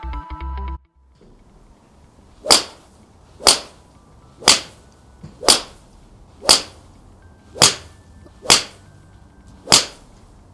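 Golf iron strikes: eight sharp club-on-ball impacts from a TaylorMade P790 5-iron, in quick succession about a second apart. A short snatch of electronic music cuts off just before them.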